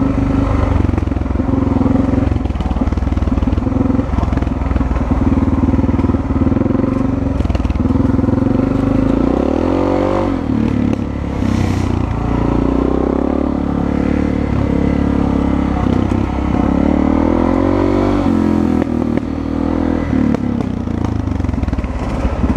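Dirt bike engine running under way, heard from the rider's helmet-mounted camera. It runs steadily at first; from about the middle onward the revs rise and fall again and again with the throttle.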